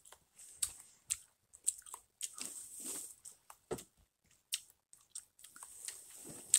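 Handling noise on a phone's microphone: scattered soft clicks, taps and rustling as the phone is moved about and held close.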